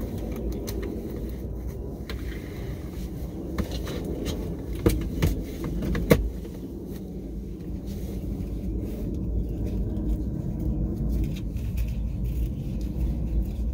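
Handling noise from a fabric net handbag holder being fitted between a car's front seats, its strap hooked around a headrest post, with several sharp clicks and knocks a few seconds in, over a steady low rumble.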